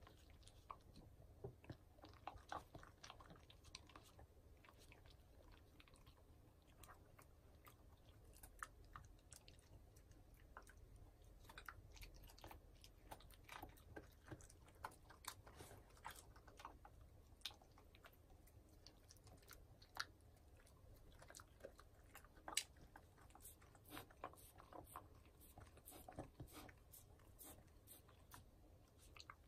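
A Shiba Inu chewing and crunching broccoli florets with quiet, irregular crunches and small clicks of its teeth, and a few sharper crunches.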